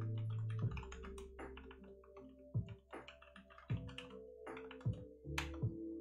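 Rapid, irregular clicking of typing on a computer keyboard, over quiet background music with sustained low notes.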